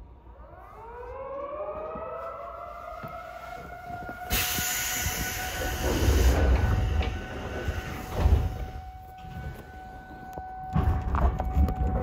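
Municipal disaster-prevention siren winding up from low to a steady high wail, like an air-raid siren, signalling the start of the memorial moment of silence. A loud rushing noise on the microphone overlays it from about four seconds in.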